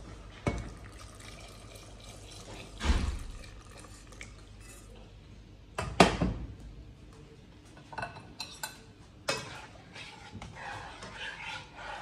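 Stainless steel saucepans clanking and knocking against the glass-top stove and each other, with some liquid sloshing as sauce is handled. There are a few separate knocks, the loudest about six seconds in and several lighter ones around eight to nine seconds.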